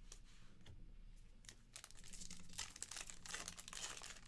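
Trading-card pack wrapper being torn open and crinkled by hand, faint, starting about a second and a half in.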